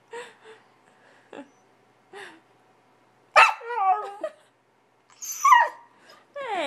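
Siberian husky puppy yipping and bark-howling: a few short, soft yips, then two loud pitched bark-howls whose pitch bends and falls, and a falling howl starting near the end. It is protesting being shut in its crate and wants out to play.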